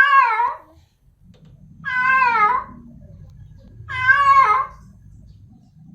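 Female cat in heat calling for a male: three meows about two seconds apart, each sliding down in pitch at the end.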